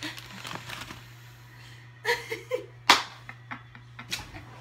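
A woman laughing, with one loud sharp smack just before three seconds in and a smaller one after four, over a steady low hum.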